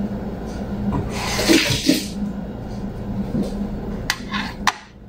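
Water from a kitchen tap runs for about a second, then a few sharp clicks follow near the end, over a low steady hum.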